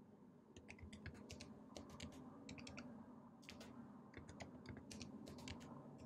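Faint keystrokes on a computer keyboard: a password typed in two quick runs, entered and then re-entered to verify it.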